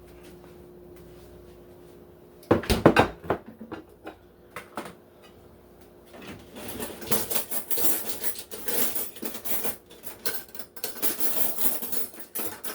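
Kitchen dishes and utensils clattering. A loud cluster of knocks about two and a half seconds in, like containers or bowls being set down on the counter. After that comes a longer stretch of scraping and clinking of a utensil against dishes.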